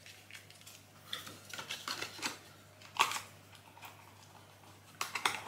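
Cosmetics packaging being handled: scattered rustles and light clicks, with one sharp click about three seconds in and a quick run of clicks near the end.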